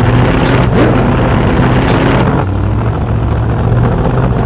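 Vehicle engine running with a steady low drone, with a brief rise and fall in pitch about a second in.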